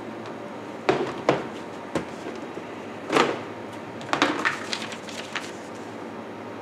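Plastic storage tubs knocked three times against shelf and counter, then a brief scrape and a rapid run of clicks and crinkles as a container is opened and a folded sheet of paper unfolded, over a steady kitchen hum.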